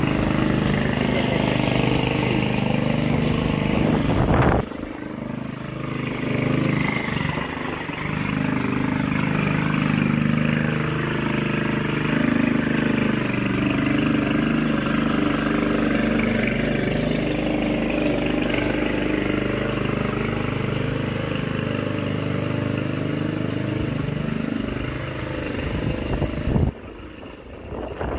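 Walk-behind petrol lawn mower engine running steadily under load as it cuts grass. The sound jumps abruptly twice, about four and a half seconds in and again near the end.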